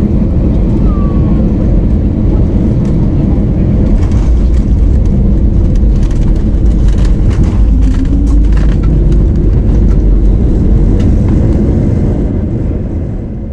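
Loud, steady rumble inside a jet airliner's cabin as it rolls down the runway after landing: engine noise and the wheels on the runway, dying away near the end.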